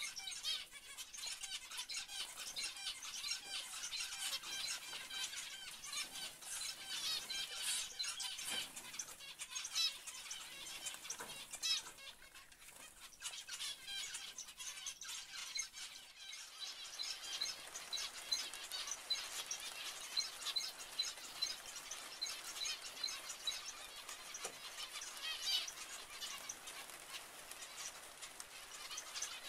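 A flock of zebra finches calling all together: a dense, constant chatter of short, high, overlapping chirps.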